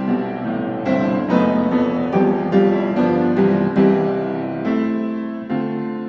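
Background piano music: a gentle melody, notes struck about twice a second, each fading before the next.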